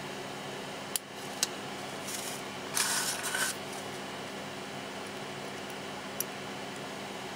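Small sharp clicks and a brief rustle from small electronic parts being handled during kit assembly: two clicks about a second in, a short rustle about three seconds in, and one more click near the end, over a steady low hum.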